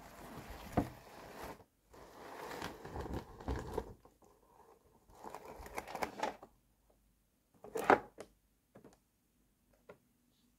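Hands handling a cardboard toy box with clear plastic trays inside: bouts of cardboard rubbing and scraping, then a sharp tap a little before eight seconds in, followed by a few faint clicks.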